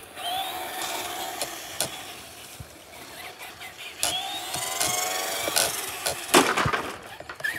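Traxxas RC car's motor and drivetrain whining as it speeds across asphalt, the pitch rising twice as it accelerates, with tyre noise in between. A sharp knock comes about six seconds in.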